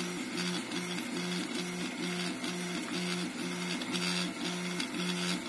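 CoreXY 3D printer printing: its stepper motors whine in a regular back-and-forth pattern of alternating tones, about two changes a second. Under them is the steady hiss of the part-cooling fan, which is rattling.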